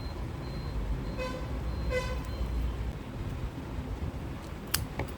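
Two short toots of a vehicle horn, a little under a second apart, over a low steady rumble; a sharp click near the end.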